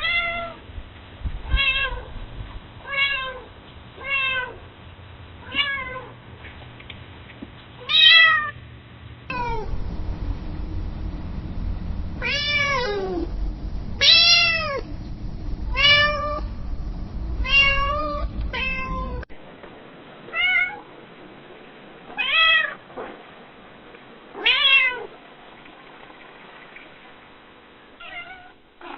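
Domestic cat meowing again and again across three separate recordings: first a run of short, evenly spaced meows ending in a louder one, then a busier stretch of longer, rising-and-falling meows over a low background rumble, then four more spaced meows and a faint last one.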